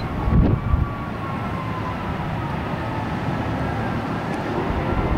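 Steady low outdoor rumble with wind buffeting the microphone, a couple of heavier gusts about half a second in, and a faint tone sliding slowly down in pitch.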